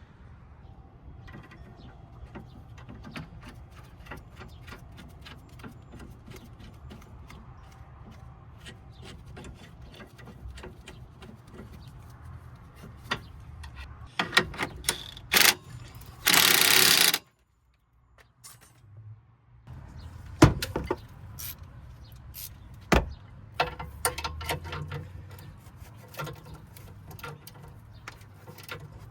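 Hand-tool work on a car's suspension: scattered metallic clicks and knocks, with sharp knocks about two thirds of the way through. A loud rushing noise lasts about a second near the middle.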